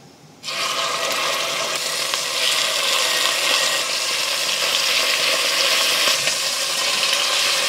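Raw chicken frying in hot oil with ginger in a cast iron Dutch oven. A steady sizzle starts suddenly about half a second in, as the chicken goes into the pot.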